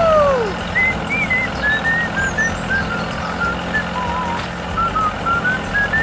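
A tractor engine sound running steadily under a light, chirpy whistled-style tune. A falling whistle-like tone dies away in the first half second.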